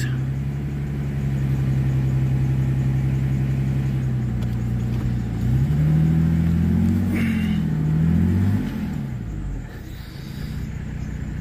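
Car engine running steadily, then revving with its pitch rising and falling for a few seconds as the car sets off, and becoming quieter near the end.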